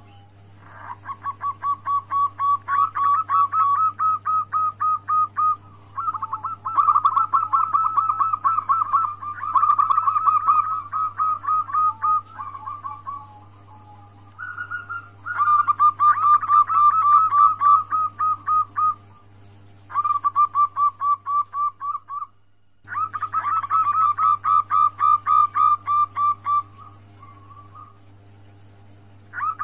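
Female zebra dove (perkutut) calling, used as a lure to bring males into breeding condition: bouts of rapid trilled notes lasting a few seconds each, with short pauses between them. A faint regular ticking about three times a second and a low hum run underneath. The sound cuts out for a moment about three-quarters of the way through.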